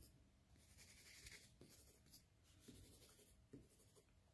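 Faint scratching of a brown coloured pencil on paper, in short, irregular strokes of rough colouring-in.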